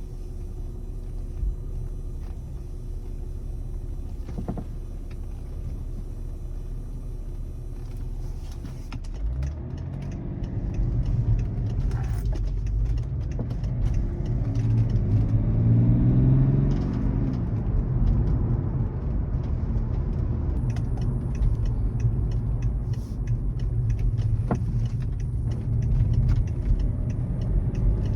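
BMW E61 530 xDrive running with a steady low rumble that gets louder about nine seconds in, its engine note rising and then falling around the middle as it pulls away. A few isolated sharp knocks stand out over the rumble: the knocking the car is being recorded for.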